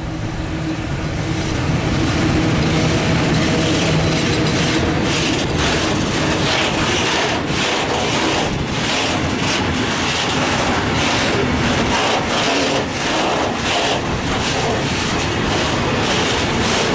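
Škoda class 181 electric locomotive passing close with a steady hum, followed by a long train of Talbot-type hopper wagons rumbling by, their wheels clacking rhythmically over the rail joints from about five seconds in.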